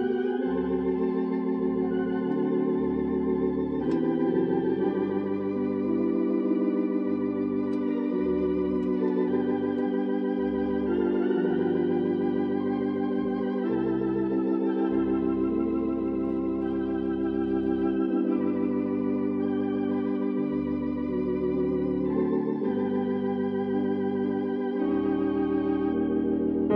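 Organ played solo: slow, held chords over a bass line in the pedals that steps from note to note every second or two.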